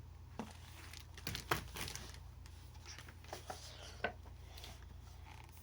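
Faint rustling and a few soft clicks of paper as the pages of a picture book are turned and handled, over a steady low hum.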